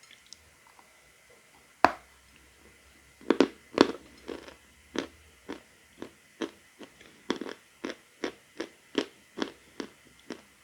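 A lump of edible chalk bitten off with one sharp crack a little under two seconds in, then crunched between the teeth in short, even chews, about two a second.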